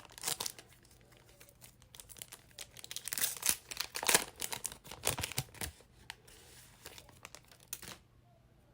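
A plastic trading-card pack wrapper crinkling and tearing as it is ripped open by hand, stopping near the end.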